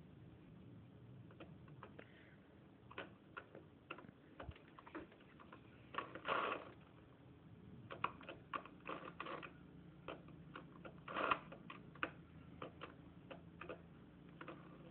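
Irregular plastic clicks and rattles from a baby jumper's toy steering wheel and attached toys as the baby handles them, with two longer rattles about six and eleven seconds in.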